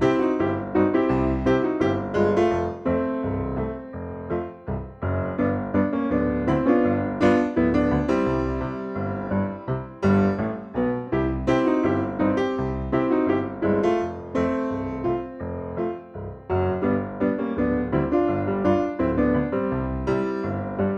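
Background piano music: notes struck in quick succession over a steady bass line.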